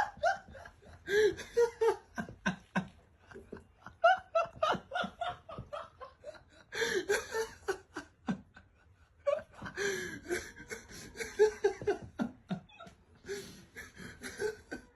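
A person laughing hard in repeated breathy bursts, with short pauses between fits.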